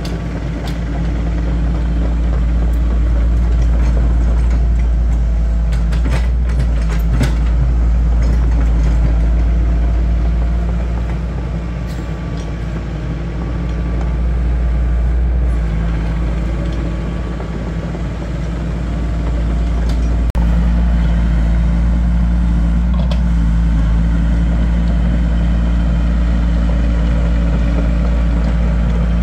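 Excavator's diesel engine running steadily with a deep, even hum, its level easing down and coming back twice, with a few short clicks about six seconds in.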